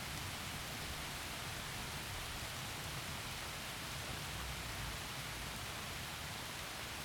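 Heavy rain falling through forest trees, a steady, even hiss with no single drops or thunder standing out.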